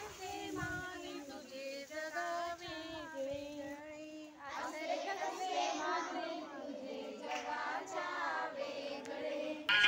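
A group of young girls and women singing a folk song together, one melody carried by many voices.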